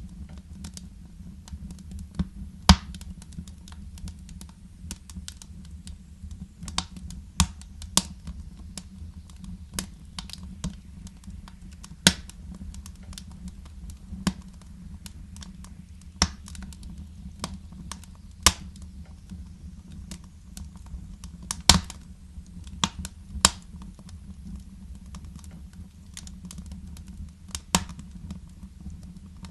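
Wood fire crackling in a fireplace: irregular sharp snaps and pops, a few much louder than the rest, over a steady low rumble.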